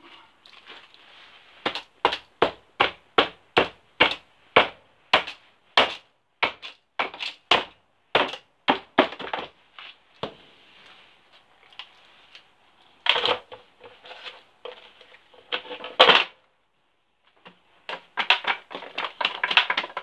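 Sharp, regular tapping of a tool on a foil-lined steel brick mould, about three knocks a second, followed by a few louder clatters and a quick run of metal rattling near the end.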